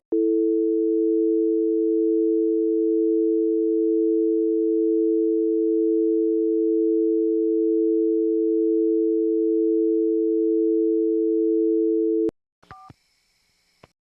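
A steady electronic alert tone made of two low notes sounding together, held unchanged for about twelve seconds and then cut off with a click. A couple of faint short beeps follow near the end.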